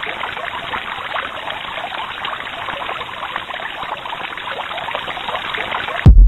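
Steady rushing and splashing of a large artificial waterfall pouring into a lagoon. Near the end it is cut off by a sudden, very loud deep boom as the volcano's fire eruption begins.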